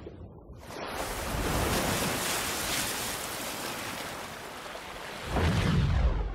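Sound-effect ocean waves and surf rushing, as in a film-studio logo intro, with a loud deep boom swelling in near the end.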